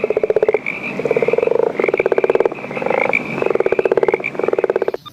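Frog call: a string of rapid, rattling croak trills, each about half a second to a second long, repeated about six times with short gaps.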